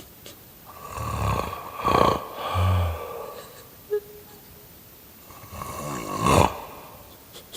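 A man snoring in his sleep: two long snores about four and a half seconds apart, each swelling to a peak and then dropping away, the first followed by a brief low sound on the breath.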